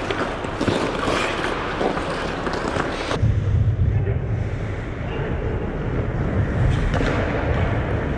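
Ice hockey rink noise: skate scrapes and stick clatter over a general hiss with faint voices. About three seconds in, the high sounds suddenly drop away and a strong low rumble takes over, heard muffled from then on.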